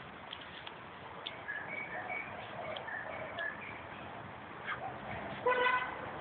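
Outdoor background hiss with a few faint, short bird chirps. About five seconds in comes a brief, loud horn toot, a single steady tone with several overtones, like a car horn.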